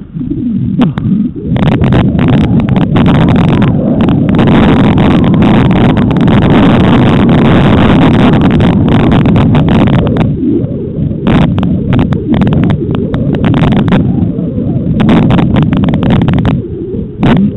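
Mountain bike ridden over a rough trail: a loud, continuous low rumble of wind and jolting on the riding camera's microphone, with sharp clicks and knocks as the bike rattles over bumps.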